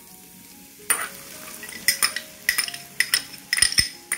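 Beaten egg hitting hot oil in a frying pan and sizzling, starting about a second in. A metal spoon clinks sharply against the bowl several times as the egg is scraped out.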